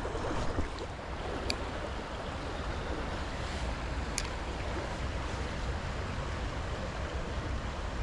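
River water flowing in a steady, even rush, with a few faint clicks about one and a half and four seconds in.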